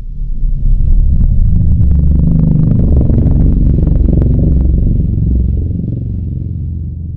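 Fan-made Godzilla monster sound effect: a loud, deep rumbling with crackling through its middle. It swells in over about the first second and fades away near the end.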